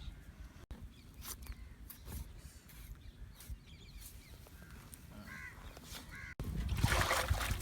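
Crows cawing a few times, with faint scattered knocks; a louder stretch of noise starts near the end.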